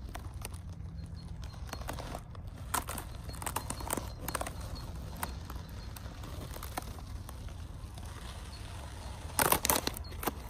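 RC scale 6x6 truck's tyres crunching and crackling over frozen snow as it crawls forward, with a steady low hum underneath. The crunches are scattered, then come loudest in a dense cluster near the end as the truck reaches the camera.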